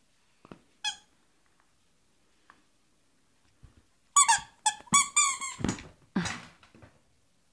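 Squeaky toy bone squeaking as a Jack Russell Terrier bites it: one short squeak about a second in, then a quick run of several loud squeaks with a few dull thuds near the end.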